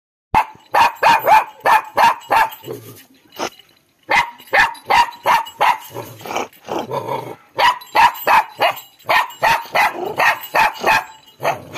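Puppy barking in quick runs of short, sharp barks, about three a second, with a brief pause about three and a half seconds in and another about seven and a half seconds in.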